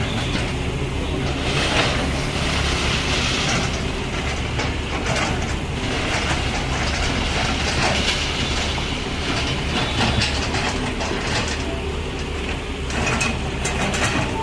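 Backhoe loader's diesel engine running steadily, with metallic clanking and rattling from the working machine scattered throughout.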